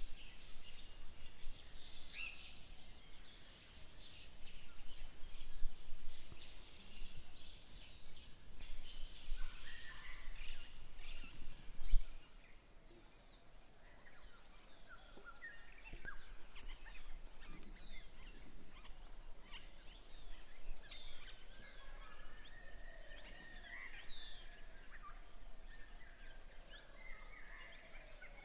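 Birds chirping and calling over a steady outdoor background, busier and louder in the first twelve seconds, with a single sharp click about twelve seconds in.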